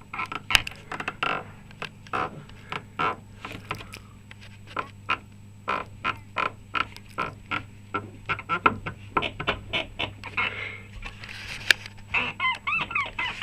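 Rubber bushing of a Lada Niva's rear trailing arm (reaction rod) squeaking over and over as the suspension moves: a rapid run of short squeaks, a few gliding in pitch near the end. The squeak is the sign of a dry, worn bushing.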